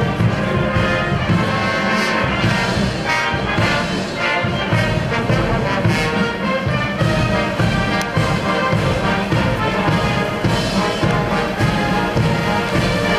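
Military marching band playing, with trumpets and trombones to the fore.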